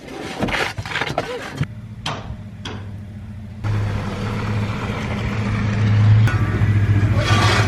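A motor or engine running steadily with a low hum that starts about one and a half seconds in and gets louder about halfway through, with a couple of short knocks shortly after it starts.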